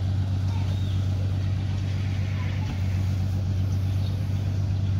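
A motor running at a steady speed, giving a constant low drone that does not change in pitch or level.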